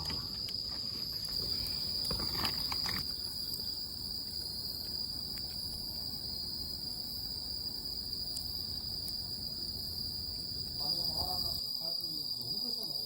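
Autumn crickets chirring as a continuous steady high trill, with a few faint clicks in the first three seconds.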